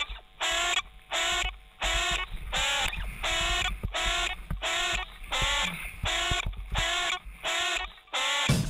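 Background music: a song intro of short, repeated pitched stabs, about three every two seconds, with a full drum kit coming in right at the end.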